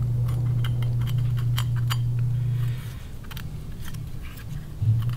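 Light metallic clicks and taps as a metal cartridge insert is turned and pressed into a plastic outboard water pump housing, its alignment tabs being lined up with the housing's grooves. A steady low hum runs underneath and drops away about three seconds in.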